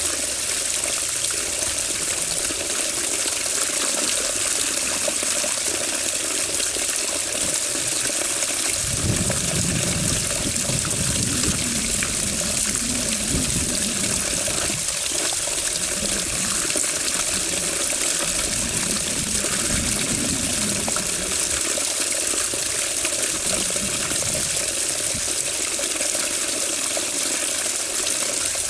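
Running water, a steady rushing, splashing noise. An irregular low rumble comes and goes through the middle part.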